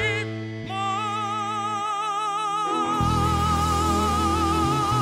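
A tenor holds one long high note with a wide, even vibrato over the band's sustained chords, the climactic final note of a power ballad. The low bass notes under it drop out for about a second partway through and then come back.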